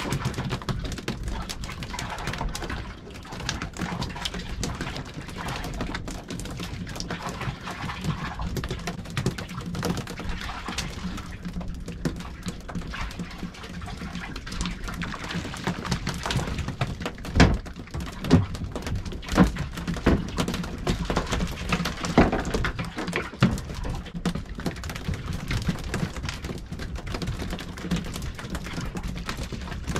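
Steady wind and water noise on a small open boat, with scattered knocks and thuds that come thickest and loudest a little past the middle.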